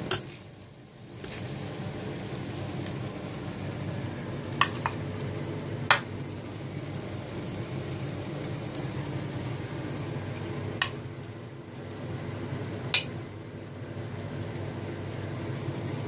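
A spoon stirring sweet coloured rice (matanjan) in a metal cooking pot, clinking sharply against the pot about six times. Under it is a steady low hiss and hum.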